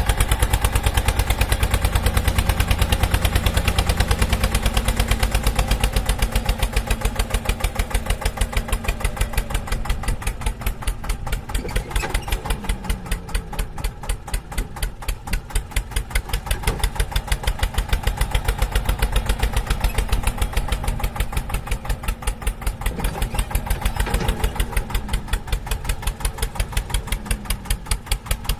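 Engine idling with an even chugging beat of a few pulses a second, with brief rising and falling tones twice: once around the middle and once near the end.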